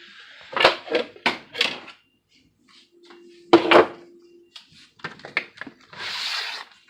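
Handling noise from parts of a car-audio amp wiring kit: a run of knocks and clatters as items are picked up and set down, loudest about three and a half seconds in, with a few lighter ticks and then a short rustle near the end.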